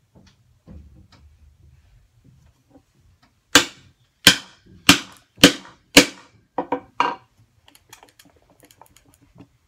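Mortise chisel struck by a steel-headed hammer, chopping into wood. There are five hard blows a little over half a second apart, then three lighter, quicker taps, then faint small knocks.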